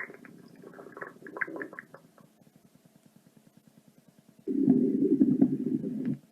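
Stomach growl sound effects. First an uneven rumble with quick pops fades away over about two seconds. After a near-quiet pause, a loud, low, drawn-out growl starts about four and a half seconds in and lasts nearly two seconds.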